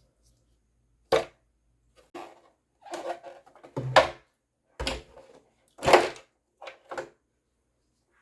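Parts and tools handled on a work surface during an appliance teardown: about seven irregular knocks and clatters, some single and sharp, some short rattling clusters.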